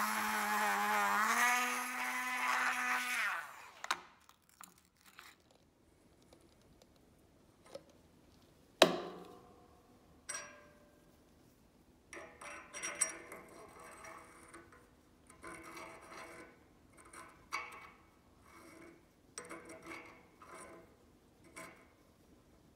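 Handheld rotary tool spinning a brass wire wheel against a steel pin: a steady motor whine that steps up in pitch about a second in and cuts off after about three and a half seconds. Near nine seconds comes one sharp metallic clank with a short ring, the loudest sound. After that come scattered light metallic clicks and rattles as the sliding jaw and parts of an old adjustable wrench are fitted back together in a vise.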